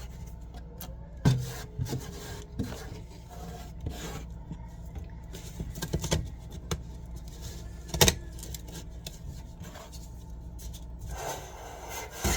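Rubbing and scraping of hands and tools working inside a dryer cabinet, with a sharp knock about a second in and another near eight seconds.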